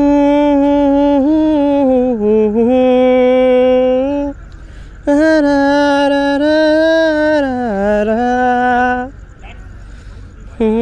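A single unaccompanied voice singing long held notes in two phrases of about four seconds each, the pitch sliding slowly down near the end of each; a third phrase begins near the end.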